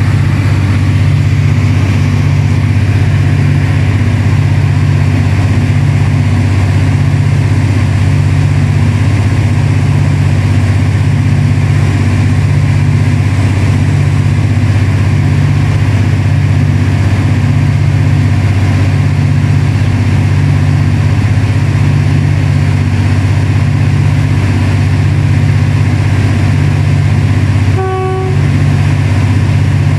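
Diesel engine of a State Railway of Thailand Alsthom diesel-electric locomotive running steadily at close range: a deep, even throb with a slow regular pulse. Near the end a short, high pitched tone sounds once, briefly.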